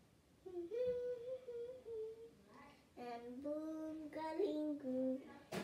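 A young girl humming and singing a tune in held, sliding notes, starting about half a second in. A single sharp click near the end.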